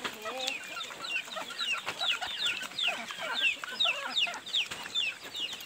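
Chickens calling around the feeding pigs: a steady run of short, high, falling peeps, several a second.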